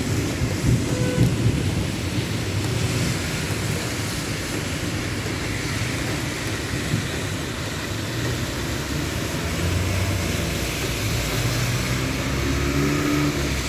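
Steady hiss of light rain with a low rumble under it; near the end a vehicle engine hums past.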